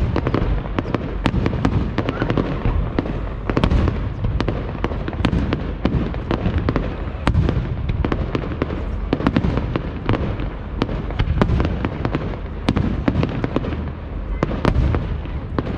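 Fireworks display: a dense, continuous string of sharp bangs and crackles, several a second, over a steady low rumble of shell bursts.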